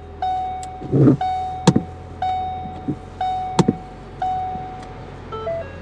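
A car's warning chime dinging about once a second, five times, each ding fading out, over the steady low idle of the 2013 Ford Focus ST's 2.0-litre turbocharged four-cylinder. A few sharp clicks and a knock fall between the dings.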